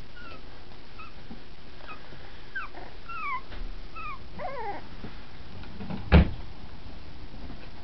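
Dachshund puppies whimpering: a string of short, high whines, each falling in pitch, stopping about five seconds in. A single sharp thump follows about six seconds in, louder than the whines.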